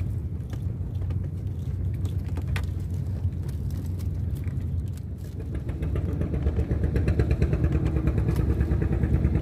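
A small boat engine running with a steady low hum. About six seconds in it gets louder and takes on a fast, even chugging beat.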